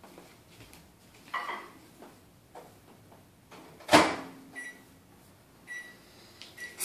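Microwave oven door shut with a sharp clack about four seconds in, followed by a few short keypad beeps as the heating time is set.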